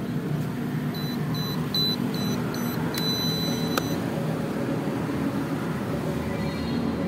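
A fibre-optic fusion splicer beeping: a quick run of about six short, high electronic beeps, then one longer beep just under a second long. A steady low rumble runs underneath.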